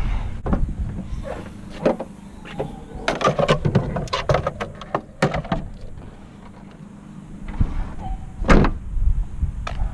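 Clicks and knocks of plastic engine-bay trim being handled, densest a few seconds in, with one loudest knock near the end.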